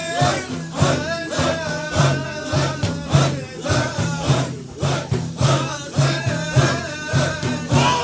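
Naqshbandi Sufi zikr: a group of men chanting together in a steady rhythm, pulsing about once a second, with a lead voice singing a higher melodic line above the chant.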